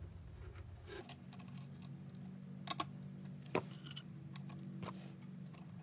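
Faint clicks and taps of a small precision screwdriver turning tiny screws into a kit ukulele's head, with a few sharper clicks, the loudest about halfway through, as the screwdriver is handled and laid on the bench. A faint steady hum runs underneath from about a second in.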